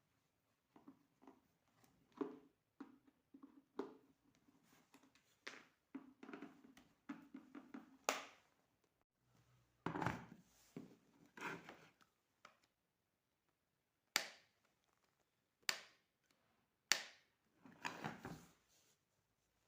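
Electric kettle being handled during repair: a run of light knocks and rattles, then a few sharp clicks spaced a second or two apart in the second half.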